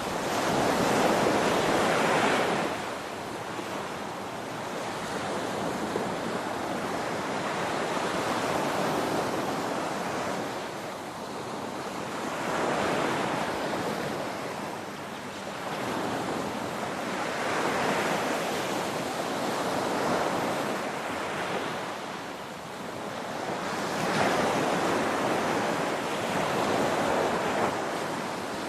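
Ocean waves breaking on a shore: a steady rushing surf that swells and eases as each wave comes in, the loudest surge about a second in.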